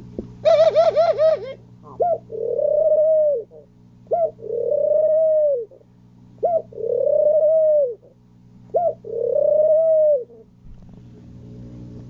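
Male pigeon cooing in courtship: four coos about two seconds apart, each a short note followed by a long coo that rises and falls. A brief rapid warble comes about half a second in, over a steady low hum.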